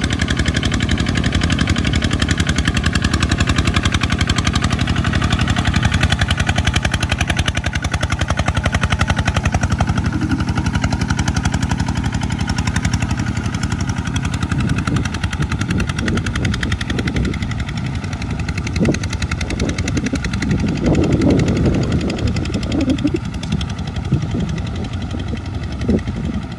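Single-cylinder diesel engine of a two-wheel walking tractor chugging rapidly and steadily under load as it hauls a loaded rice cart through deep mud. From about halfway on, irregular splashing and sloshing of the wheels through muddy water joins in.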